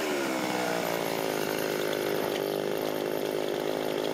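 A 2.5 HP two-stroke chainsaw engine running at high revs, its pitch held nearly steady.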